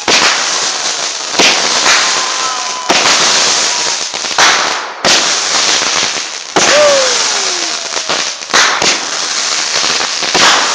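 Multi-shot consumer fireworks cake firing: a dense, continuous crackle with a sharp bang every second or two. A short whistle sounds about two seconds in, and another whistle falls in pitch about seven seconds in.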